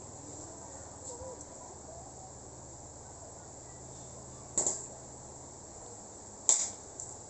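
Two sharp cracks, about two seconds apart, from a pump-action air rifle being fired, over a steady chirring of crickets.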